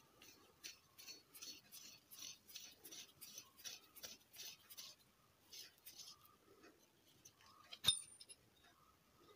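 Aluminium heat sink handled at close range: a run of quick rasping strokes, about three a second, for the first half. Then a single sharp metallic clink about eight seconds in.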